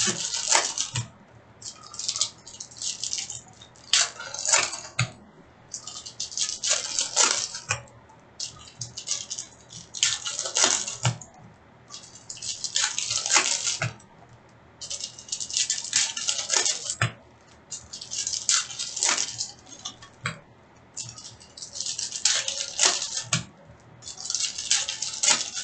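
Upper Deck hockey card packs being torn open and the cards handled: a dozen or so short bursts of crinkling and rustling, a second or two apart, with small sharp clicks.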